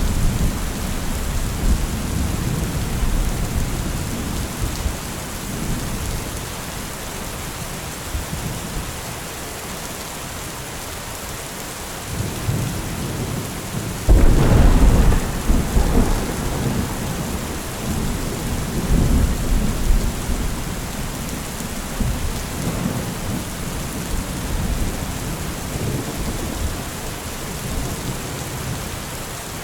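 Steady rain falling with rolling thunder: a rumble fading away in the first seconds, then a sudden loud thunderclap about halfway through that rumbles on and dies away over several seconds, followed by softer rumbles.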